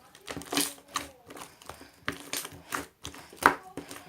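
A series of irregular sharp clicks and taps, about eight of them, the loudest a little past the middle.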